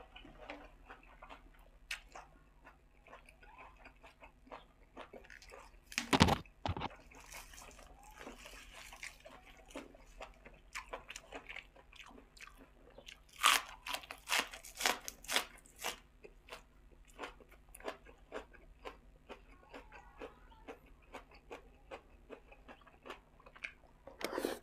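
Close-miked chewing and crunching of fresh raw vegetables and spicy pork salad: a steady run of wet chewing clicks, a few a second, with loud crunchy bites about six seconds in and again around fourteen seconds in.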